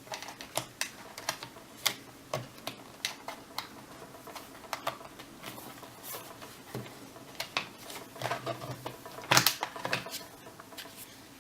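Irregular plastic clicks and knocks from handling an old Toshiba laptop while its battery is unlatched and pulled out of the case, with a louder clatter about nine seconds in.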